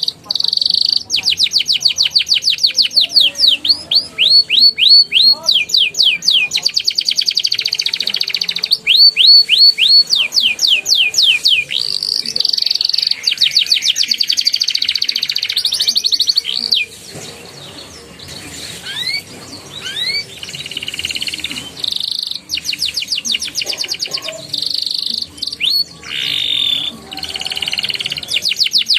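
Young canary singing a loud, fast song of trills and rolls: long runs of quickly repeated sweeping notes. Partway through it thins to a few separate rising notes, then the rapid runs return.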